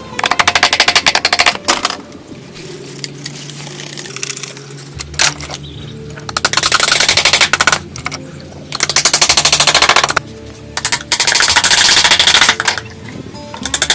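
Four bursts of very rapid mechanical hammering, each about one to two seconds long, over background music.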